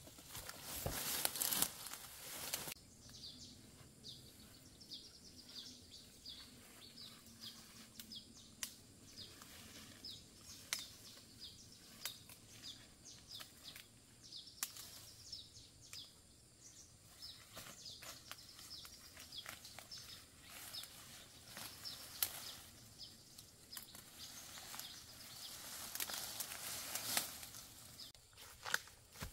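Rustling of fern fronds and undergrowth as someone pushes through them, loudest at the start and again near the end, with a bird chirping over and over in short, high notes in between.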